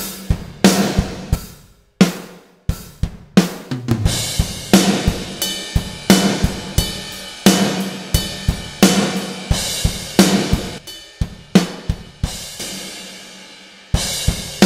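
Sampled rock drum kit from Superior Drummer 3 with the Big Stage EZX library playing a steady groove: kick, snare with a reverberant tail, hi-hat and cymbals. The beat breaks off briefly about two seconds in and goes into a fill, and near the end the hits stop for over a second, leaving the last one to ring out before the beat comes back.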